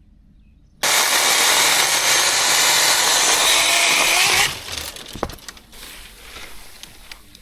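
Small branches being cut and cleared: a loud, continuous rasping noise that starts suddenly about a second in and stops after about four seconds, then scattered snaps and rustling of twigs.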